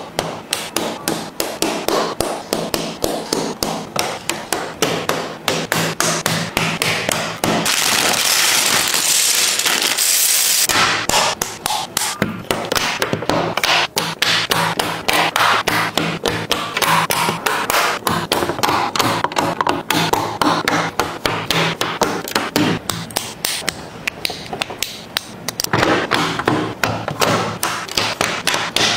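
Plastic LEGO bricks and plates being pressed and snapped into place: a rapid, even run of sharp clicks, about four a second. About eight seconds in there are three seconds of rustling hiss.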